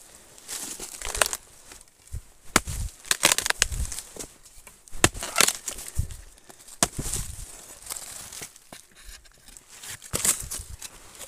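A machete striking and scraping a piece of wood, in irregular sharp knocks, with rustling and crackling of dry leaf litter.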